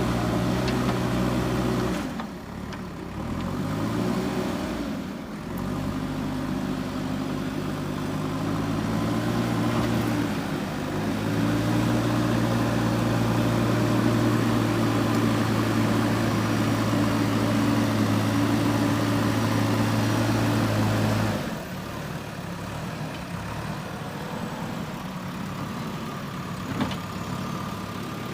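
JCB 3DX backhoe loader's diesel engine working, its revs dropping and climbing again a few seconds in, then holding steady and loud, before falling back to a quieter idle about 21 seconds in.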